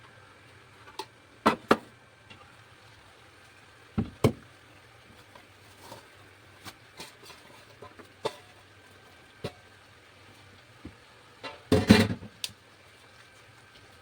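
Irregular knocks and clatters of kitchen utensils and dishes during food preparation: two sharp knocks in quick succession near the start, another pair about four seconds in, and a louder cluster of clattering near the end. A faint steady low hum lies underneath.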